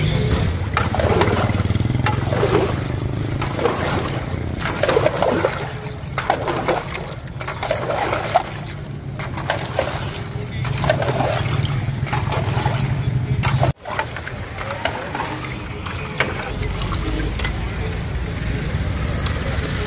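Busy street ambience: a motor engine runs steadily under indistinct background voices. The sound cuts out for an instant about two-thirds of the way through.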